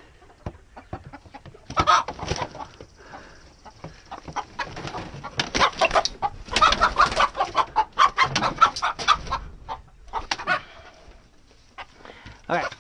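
Domestic hens squawking and clucking in alarm as they are chased and caught with a landing net. The calls come in bunches, with one short burst about two seconds in and a long stretch of loud squawking in the middle. Scuffling and sharp knocks are mixed in with the calls.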